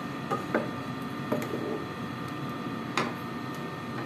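A metal ladle clinking against the cooking pot and serving plate as curry is ladled out: a few light clinks, the loudest about three seconds in, over a steady faint hiss.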